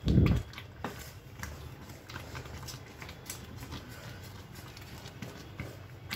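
Spatula stirring thick cooking semolina upma in a steel pan, with scattered scrapes and taps against the pan. A heavy low thump sounds right at the start.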